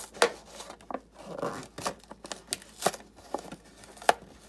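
Clear plastic blister packaging being peeled and prised off a toy's cardboard backing card: irregular crackles and sharp clicks of stiff plastic, the sharpest about a quarter-second in and again just after four seconds.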